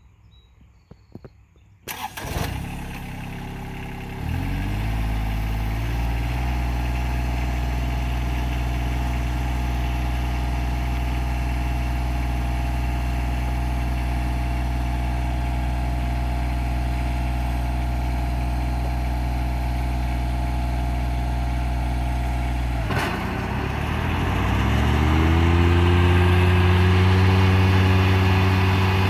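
John Deere 2320 compact tractor's three-cylinder diesel engine starting about two seconds in, picking up speed and settling into a steady idle. After about twenty seconds it revs up to a higher, louder steady speed.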